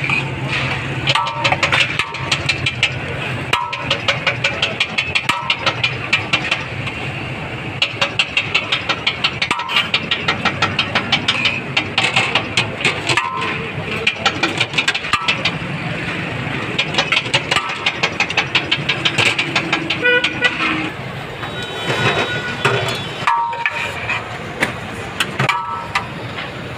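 Street traffic with short vehicle-horn toots every second or two, over a fast, continuous run of sharp clicks or taps.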